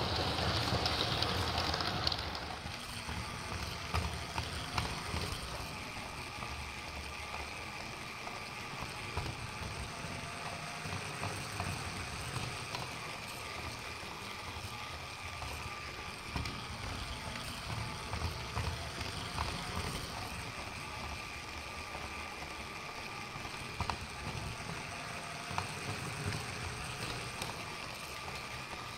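LEGO 60337 Express Passenger Train running on plastic track: a steady whine from its small electric train motor over a low rumble of the wheels, with scattered clicks as they cross the track joints. It is loudest for the first two seconds as the train passes close by.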